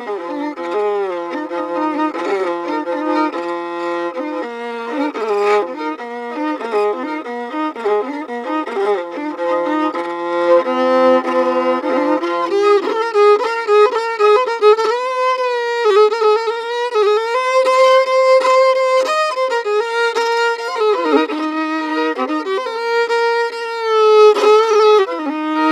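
Violin music: a slow melody of long held notes with vibrato.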